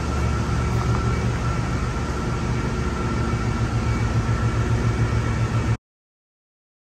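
1998 John Deere 6068TF 6.8 L turbocharged inline-six diesel running steadily on a test-run stand. The sound cuts off suddenly near the end.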